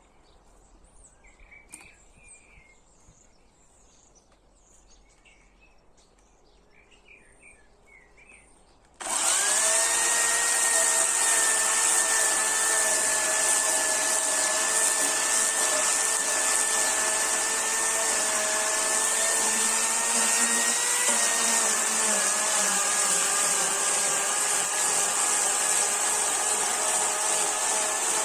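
Birds chirping faintly, then about a third of the way in a chainsaw starts up loud and runs at a steady high whine with a hiss, its pitch dipping slightly about three quarters through.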